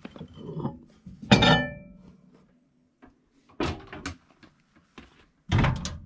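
A hot glass candle jar is lifted out of a microwave and set down with a loud clunk about a second in, ringing briefly. A few sharper knocks follow a couple of seconds later.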